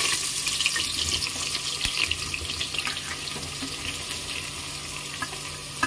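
Sliced onions frying in hot oil in a pressure cooker: a loud sizzle full of small crackling pops that slowly eases as the onions settle into the oil.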